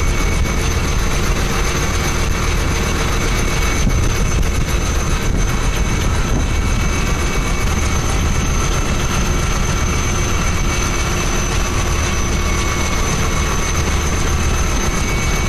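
Steady aircraft engine drone heard from inside the aircraft in flight: a deep rumble under several constant whining tones.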